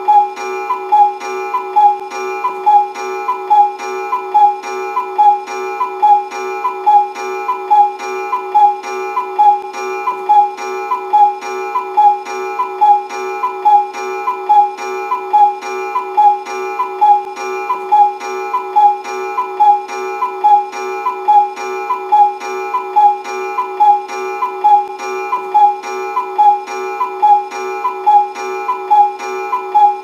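Cuckoo clock calling its two-note 'cuck-oo' over and over, evenly repeated roughly once a second without a break.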